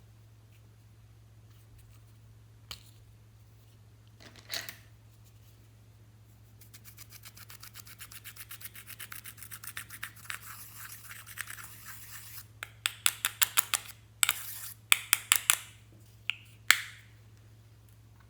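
Slime being worked by hand: a fast run of small crackling clicks that grows louder, then sharper separate pops and a short crackle near the end.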